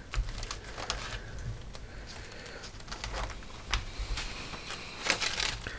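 Paper pages of a spiral-bound manual being handled and turned: soft scattered rustles and slides, with a louder flurry of rustling near the end.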